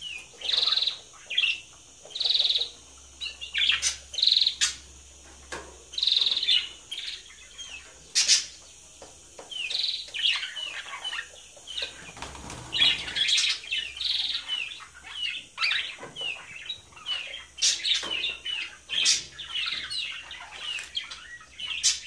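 Budgerigars chirping: short repeated calls about once a second at first, turning into busier warbling chatter from about ten seconds in, with a few sharp clicks.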